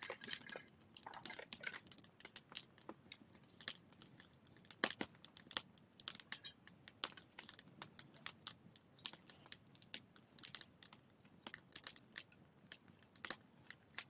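Wood fire crackling, with irregular sharp pops and snaps from the burning firewood.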